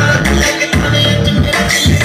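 Music with a strong, pulsing bass line, played loud through a 1200-watt 2SC5200/2SA1943 transistor power amplifier driving a pair of boxed speakers.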